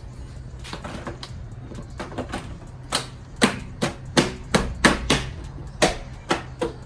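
A series of sharp clicks, a few faint ones at first, then about ten loud ones in quick, uneven succession, two or three a second, from about halfway on.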